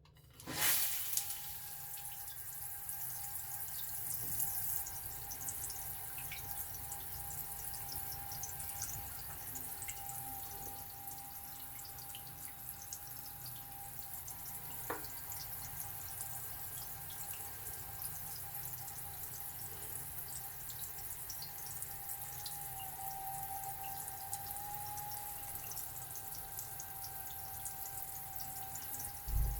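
Shower water running through an LED digital temperature display shower head, with a steady whining tone over the rush of the water; the tone wobbles slightly near the end. The water comes on with a rush about half a second in.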